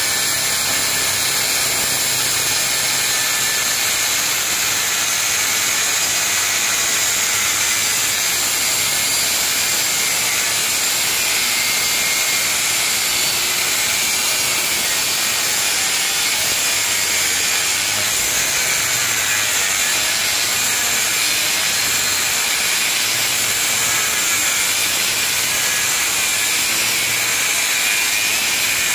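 Angle grinder with a thin cut-off disc running steadily and cutting into hardened truck spring steel, a continuous high-pitched whine over a grinding hiss.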